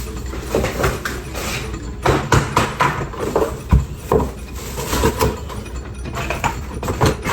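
Irregular clatter of knocks and clicks as ring light and tripod parts are handled and shuffled about, with a low hum underneath.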